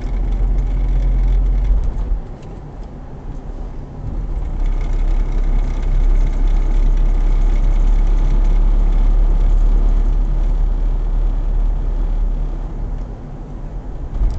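Road and engine noise inside a moving car's cabin: a deep, steady rumble. It eases off for a couple of seconds about two seconds in, and again near the end.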